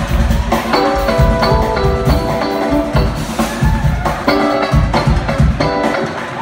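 Live jazz-fusion band playing drum kit, bass and electric guitar: a line of short melodic notes over heavy bass and drums.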